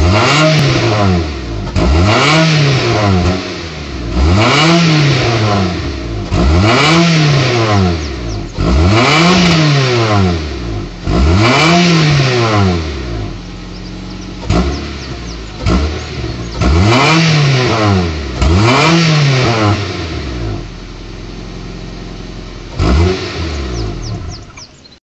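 Honda Prelude 5G VTi's 2.2-litre VTEC four-cylinder, heard at the tailpipe through its original exhaust manifold and catalytic converter, being revved in neutral. It gives quick blips that rise and fall about every two seconds, drops back to a steady idle twice, and ends with one last short blip.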